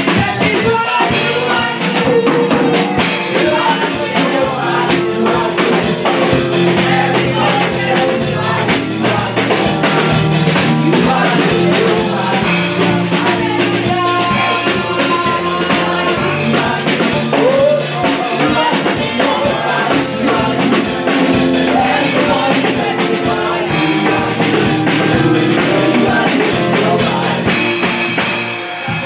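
Live gospel praise music: women singing over drums and tambourine with a steady beat.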